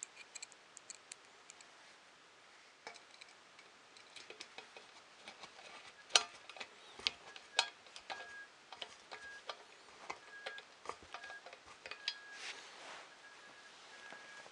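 A hand nut driver turning bolts into a 3D printer's metal frame brackets: irregular small metallic clicks and ticks, the loudest about six and seven and a half seconds in.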